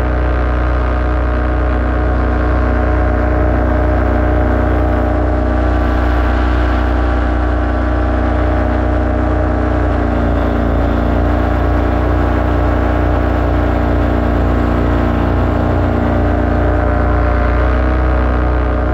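Paramotor engine and propeller running steadily in flight, a loud, even drone that holds one pitch throughout.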